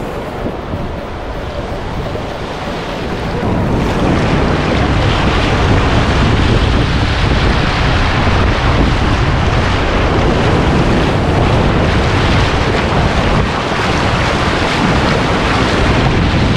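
Ocean surf washing up the beach with wind buffeting the microphone, a steady rush that grows louder about four seconds in.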